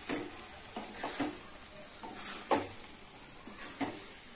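Spatula stirring and turning moist tomato rice in a metal kadhai: a few short, soft scraping strokes over a faint steady sizzle.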